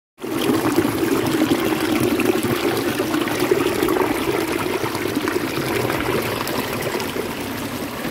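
River water pouring over a rock ledge into a pool, a steady splashing rush. It starts and stops abruptly.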